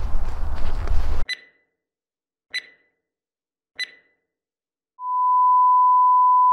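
Outdoor background rumble cuts off about a second in. Three short, identical electronic beeps follow, about a second and a quarter apart, then a steady high-pitched test tone, the classic colour-bars-and-tone sound effect.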